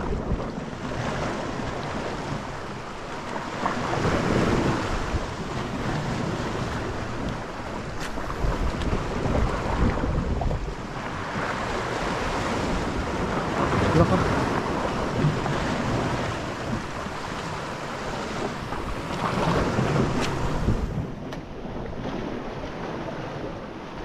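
Sea waves washing against shore rocks, swelling and easing every few seconds, with wind buffeting the microphone.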